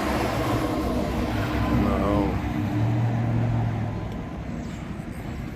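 An engine running steadily with a low hum, easing off a little after about four seconds, with a brief faint voice about two seconds in.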